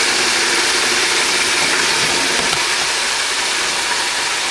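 Floured chicken pieces deep-frying in hot oil in a covered DeLonghi electric deep fryer: a steady, loud sizzling crackle of oil bubbling around the chicken.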